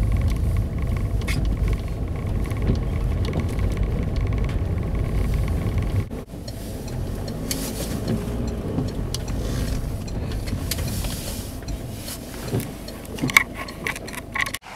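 Low, steady rumble of a car driving along a snowy road, heard from inside the vehicle. About six seconds in it drops suddenly to a quieter rumble, and a few light clicks come near the end.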